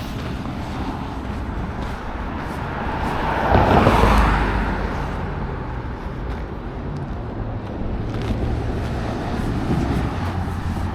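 Road traffic heard while walking: a vehicle passes about four seconds in, its noise swelling and then fading over a steady traffic hum, with a smaller rise near the end.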